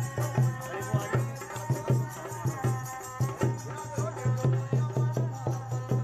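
Background music: a steady low drone under a melody, with an even percussion beat of about two strokes a second.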